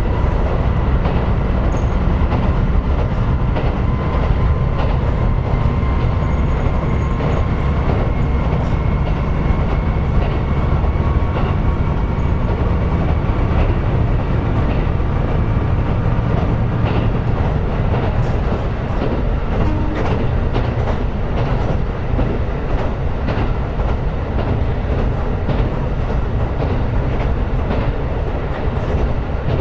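KiHa 125 diesel railcar running between stations: a steady low rumble of engine and wheels on the rails, with a faint whine drifting slightly upward in pitch. In the second half there are short clicks from the wheels on the track.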